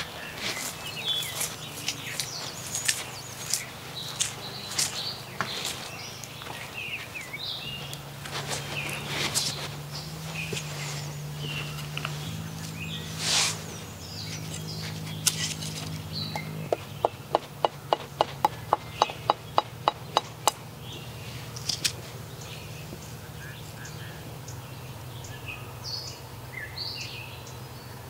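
Birds chirping outdoors over a steady faint low hum, with footsteps and rustling on dry ground in the first part. About two-thirds of the way in comes a quick run of a dozen or so sharp clicks, about four a second.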